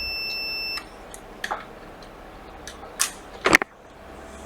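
Multimeter continuity beeper sounding a steady high tone with its probes on a capacitor of the PPDCIN_G3H line: a dead short to ground. The tone cuts off about a second in, and a few sharp clicks and taps follow, the loudest past the middle.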